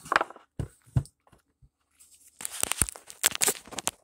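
Handling noise close to the microphone: a few sharp knocks and thumps, then a run of crackling, crinkling rustles in the second half.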